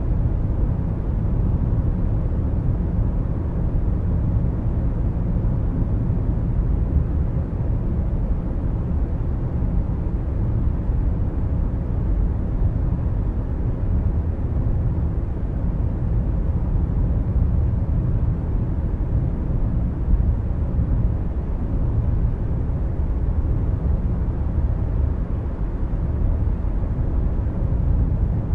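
Steady low rumble of a car driving at motorway speed: tyre and wind noise heard from inside the cabin.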